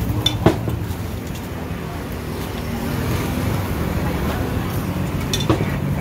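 Stainless steel bowls and utensils clinking on a food-prep counter, two sharp clinks about half a second in and near the end, over a steady low hum.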